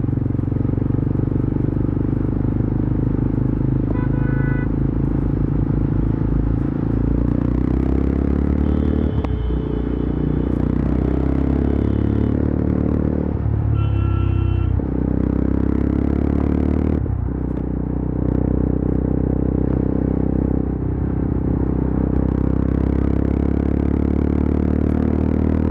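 Yezdi Adventure's 334 cc single-cylinder engine and exhaust running steadily at highway speed. The engine note dips briefly several times and its pitch rises again after each dip.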